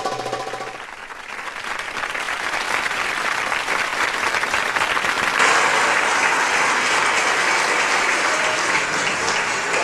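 Studio audience applauding as a belly-dance drum solo ends: the last of the music dies away in the first second, then the clapping swells and grows louder about halfway through.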